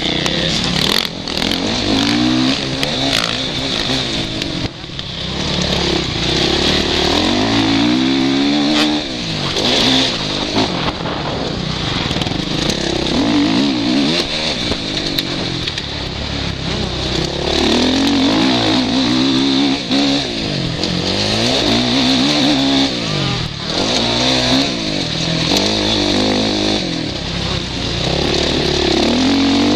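Suzuki RM-Z450 motocross bike's single-cylinder four-stroke engine under hard riding, its pitch rising and falling over and over as the throttle opens and closes and the gears change, heard from the rider's helmet with a constant rush of wind over the microphone.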